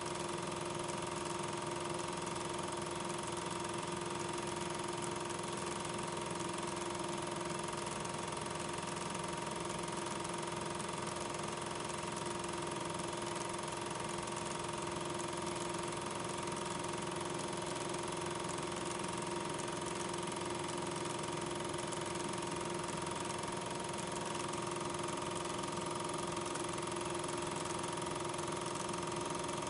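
Steady running hum of a film projector over a constant hiss, with two unchanging tones and no other events.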